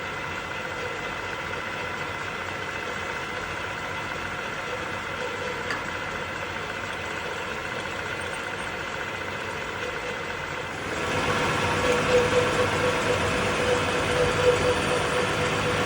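Metalworking machine tool motor running with a steady hum. About eleven seconds in it gets louder and rougher.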